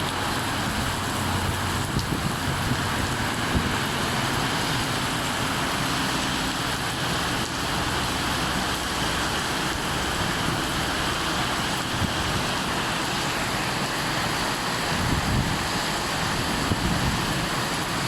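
Steady downpour of thunderstorm rain, an even hiss that keeps up without a break.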